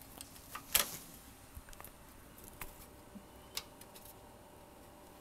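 Scattered clicks and light metallic rattles from the sheet-metal chassis and circuit boards of a Dell 1704FPVt LCD monitor being handled while a board is pulled at to free it from its socket. The loudest click comes just under a second in.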